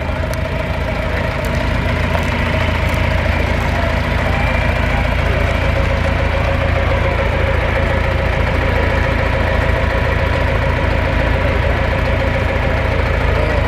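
Vintage John Deere tractor's engine running at low speed as the tractor drives slowly up close, getting a little louder over the first couple of seconds and then holding steady.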